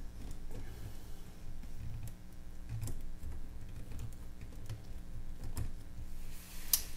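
Small scattered clicks and soft taps of steel tweezers and a soldering-iron tip against a circuit board while an SMD fuse is desoldered, over a low steady hum, with a sharper click near the end.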